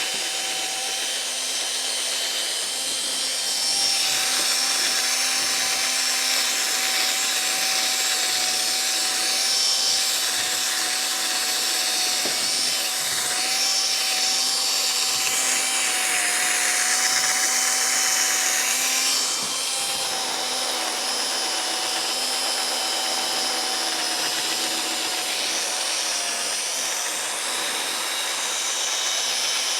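Cordless drill spinning a polishing pad against a plastic headlight lens, a steady whine with a rubbing hiss. It gets a little louder a few seconds in and eases back down after about fifteen seconds.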